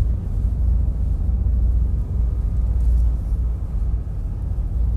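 Small passenger ferry under way: a steady low rumble of its engine and of the water rushing along the hull, heard inside the passenger cabin.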